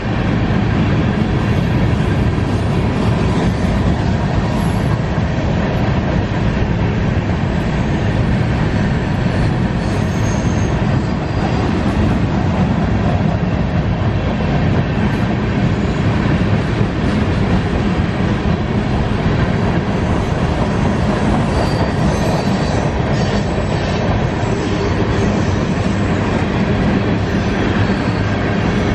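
Freight train tank cars and covered hoppers rolling steadily past at close range: a continuous rumble and clatter of steel wheels on the rails, with a faint high wheel squeal now and then.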